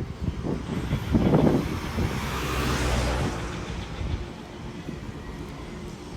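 Urban outdoor traffic noise. A passing vehicle's hiss swells and fades around the middle, over a low steady rumble, with uneven low rumbling gusts in the first couple of seconds.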